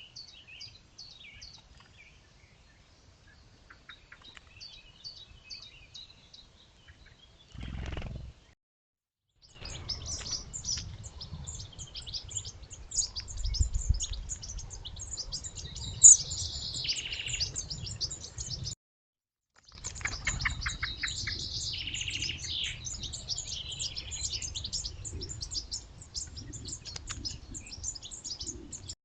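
Small birds chirping in quick repeated notes over a low wind rumble on a trail camera's microphone, with one loud sharp call partway through. The sound cuts out twice for about a second between clips.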